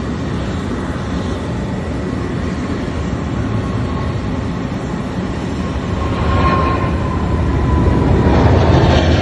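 Boeing 747-400's four Rolls-Royce RB211 jet engines at taxi power as the airliner rolls past: a steady low rumble that grows louder from about six seconds in, with a faint whine falling slightly in pitch.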